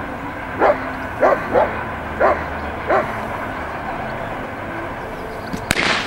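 Belgian Malinois barking, about five sharp barks in the first three seconds, then a quieter stretch. A sudden loud noise comes near the end.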